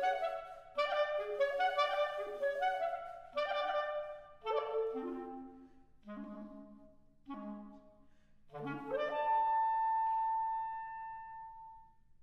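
Solo B-flat clarinet playing short phrases of quick, separate notes, then about nine seconds in a long held high note that fades away.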